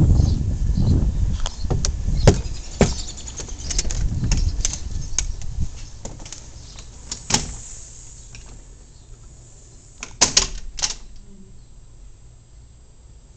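A low rumble with scattered clicks for the first few seconds, then sharp clicks and knocks from the front door's lock and latch as the door is opened, a few seconds apart.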